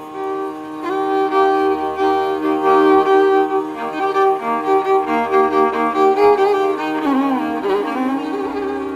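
Background music: a bowed string melody over sustained chords, with notes that slide between pitches, set over a low drone that comes and goes every couple of seconds.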